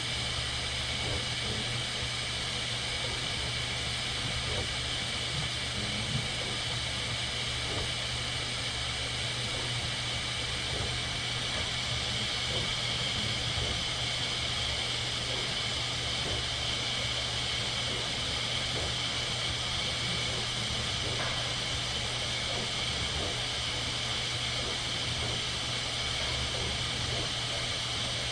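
Bambu Lab 3D printer running steadily: a constant fan hiss with a low motor hum underneath.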